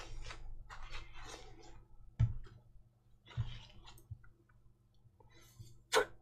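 Hands handling a tissue and small parts: soft, intermittent rustling with a few sharp clicks, the loudest near the end.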